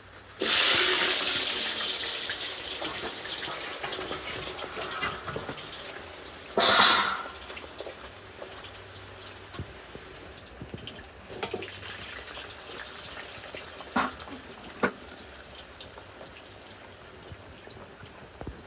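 Hot oil sizzling hard as food is dropped in for deep frying, the sizzle easing off over several seconds, with a second short burst of spitting partway through and a few sharp crackles later.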